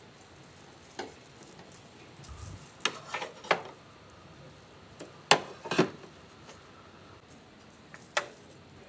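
Clear plastic sheet crinkling and metal binder clips clicking as a cloth-and-plastic liner is handled and clipped onto the rim of a large metal steamer. The sounds come as a series of short, sharp crackles and clicks, the loudest about five seconds in.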